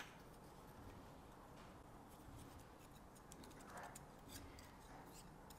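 Near silence with faint, scattered metallic ticks as a worn piston and connecting rod from a BMW B58 engine are turned over in the hands, the rings loose in their grooves. A single sharp click comes at the very start.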